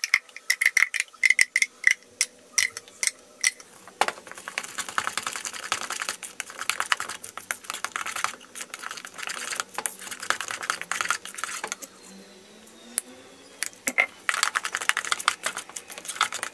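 A spoon scraping and knocking thick puree out of a blender jug, with ringing clinks in the first few seconds. Then the spoon stirs a thick brownie batter in a plastic mixing bowl: quick, dense scraping clicks with a short lull near the end.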